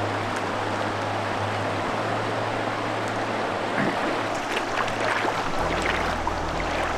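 Ice-blue glacial river flowing fast over rocks, a steady rush of water. Through the second half, short splashes as a foot wades into the shallow water.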